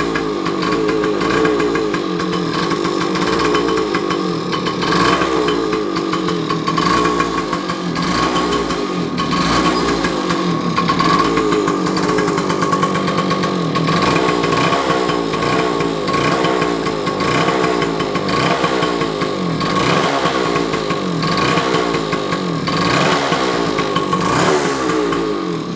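A 1972 Yamaha G7S's 80cc single-cylinder two-stroke engine running just after a cold start on choke, its speed wavering a little. It is running steadily with the usual two-stroke buzz.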